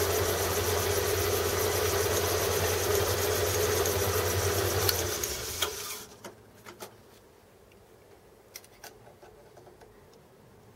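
Small metal lathe running with a steady hum, switched off about five seconds in and spinning down to quiet. A few light clicks follow as a caliper is put to the turned shaft.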